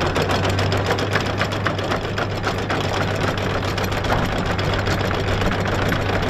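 Electric anchor windlass running, with the anchor chain rattling link by link over the gypsy and a steady low hum under the rapid clatter.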